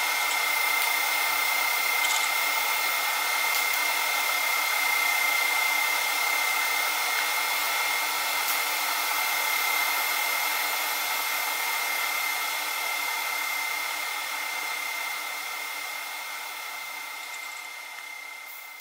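Steady hiss with a constant high-pitched whine from a TIG welding setup during titanium welding, fading out over the last few seconds.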